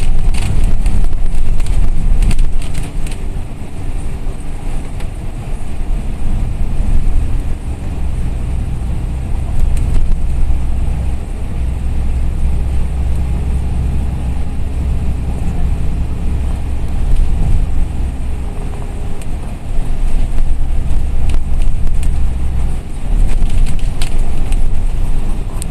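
Inside a moving double-decker bus at highway speed: a steady low engine drone and road noise that swells and eases, with a few sharp clicks in the first seconds.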